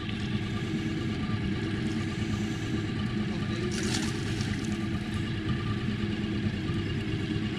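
Boat's outboard motor idling steadily; just under four seconds in, a brief splash as the hooked fish thrashes at the surface beside the landing net.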